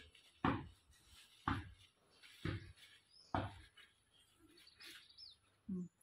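Four dull thumps about a second apart, then a single short bird chirp near the end.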